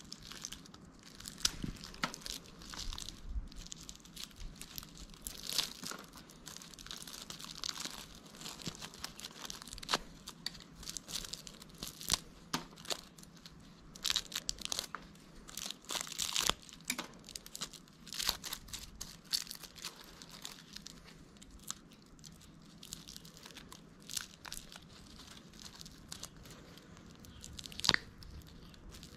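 Irregular scraping, clicking and crunching of hand tools working on a sewing machine's casing and internal parts as it is taken apart, with a sharper knock near the end.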